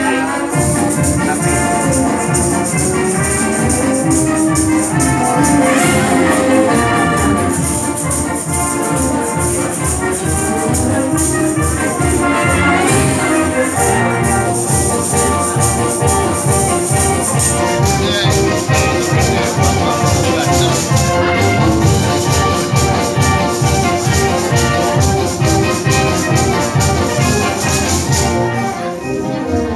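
A group of Salvation Army timbrels, ribboned tambourines, shaken and struck in unison to instrumental backing music with a steady beat.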